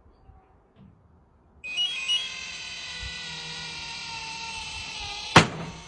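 Automatic dog-ball launcher: its motor starts up suddenly about two seconds in with a couple of short beeps and runs with a steady whine, then it fires the ball with a single sharp crack near the end.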